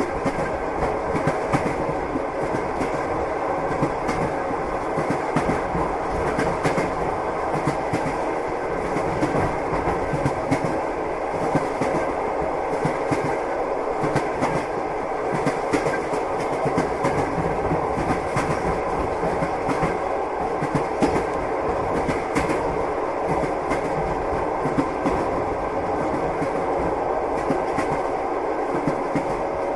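Passenger train running, heard from inside the carriage: a steady rumble with the clickety-clack of the wheels knocking over rail joints.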